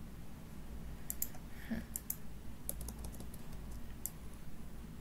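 Computer keyboard being typed on: a dozen or so short key clicks in an irregular run, starting about a second in, over a low steady hum.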